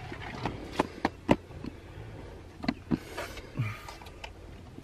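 Scattered light clicks and knocks inside a car cabin, over a low steady hum.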